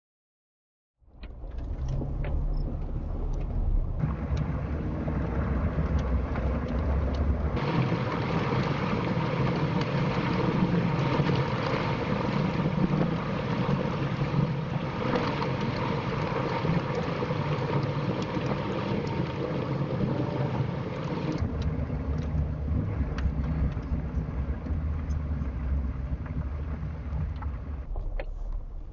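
A vehicle driving, heard from inside: steady engine and tyre rumble. From about 7 seconds in to about 21 seconds in the rumble gives way to a louder, harsher hiss of road or wind noise, then the low rumble returns.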